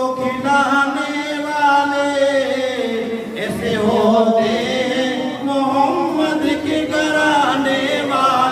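A man's voice chanting devotional verse into a microphone, in long held notes that slide from pitch to pitch.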